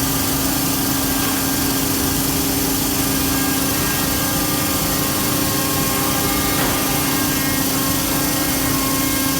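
Biesse CNC router running steadily, its spindle cutter routing a design into a solid-wood wardrobe door panel, with a constant hum under a broad hiss.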